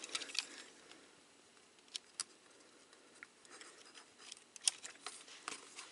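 Faint clicks and light handling of a plastic Transformers action figure as its sword pieces are fitted into its hands. The clicks are sparse at first and come more often in the second half, the loudest a little under five seconds in.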